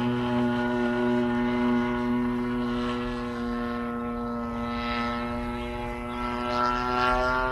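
Radio-controlled model airplane's DLE-35 single-cylinder two-stroke gasoline engine and propeller running in flight overhead, a steady buzzing drone. The pitch and loudness rise slightly near the end.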